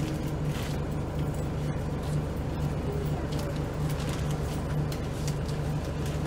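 Scania L94UB single-decker bus's diesel engine running steadily, heard from inside the passenger saloon as a low, even hum with light clicks and rattles over it.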